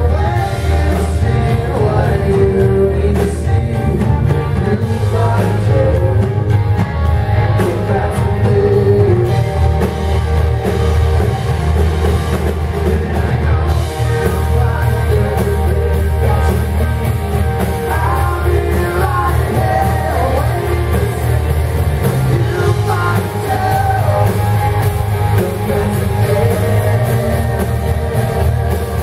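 A live rock band playing loud amplified music with electric guitar, bass and drums, and a voice singing at times.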